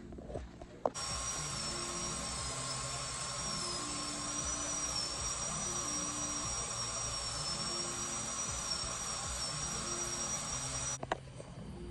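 High-speed dental handpiece running with a steady hiss and a high, slightly wavering whine. It starts about a second in and cuts off abruptly near the end: the drill used to clean leftover bracket adhesive off the teeth once the braces are off.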